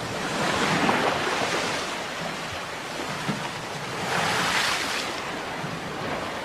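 Sea waves breaking and washing on a shore, two swells of surf, the stronger one about four seconds in.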